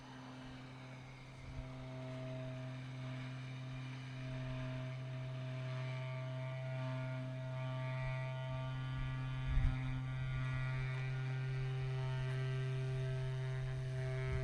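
Trumpet played with extended technique, holding a steady low buzzing drone while the overtones above it shift in and out. A single dull low thump sounds about two-thirds of the way through.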